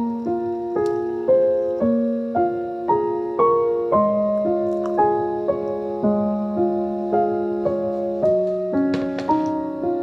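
Gentle background piano music, notes struck at an even pace of about two a second.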